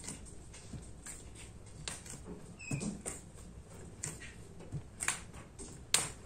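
Scattered light knocks and clicks, the sharpest two about five and six seconds in.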